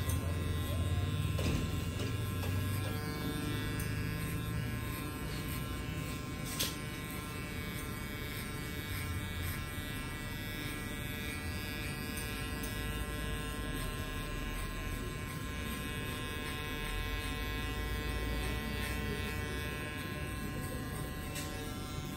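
Electric hair clippers running steadily, a constant buzz with an unchanging pitch, with one short click about six and a half seconds in.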